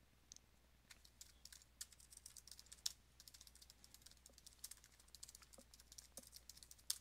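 Faint typing on a computer keyboard: a quick, irregular run of key clicks, with a couple of louder keystrokes.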